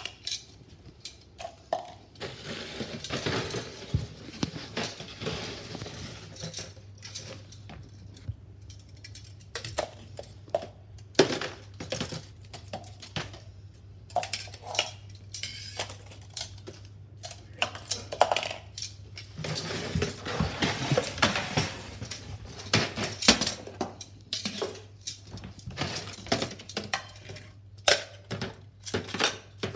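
Irregular clattering and clinking of a metal reacher-grabber's arms against plastic toy wheelie bins and a plastic tub, with sharp knocks as the bins are set down on a tile floor. Bouts of rustling come from paper and plastic scraps being tipped out.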